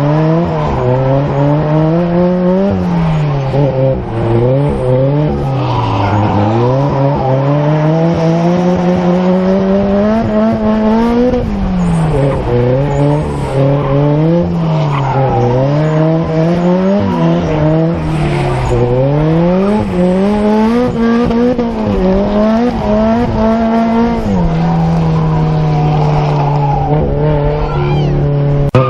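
A car engine revving hard, its pitch climbing and dropping over and over as the throttle is worked, with tyres squealing: a car drifting.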